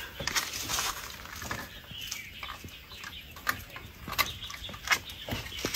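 A handful of sharp, irregularly spaced clicks and knocks from hands working at a small motorcycle's engine.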